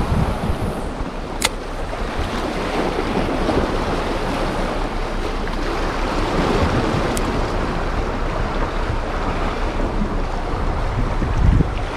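Sea surf washing against the shore, with wind buffeting the microphone. A single sharp click comes about a second and a half in.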